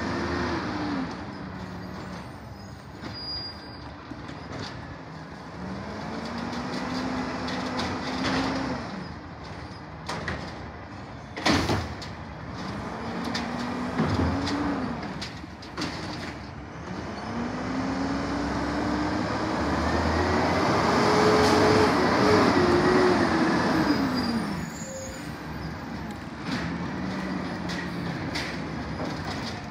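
Peterbilt garbage truck's diesel engine revving up and dropping back several times, the longest and loudest rise about two-thirds of the way in. One sharp knock about a third of the way in.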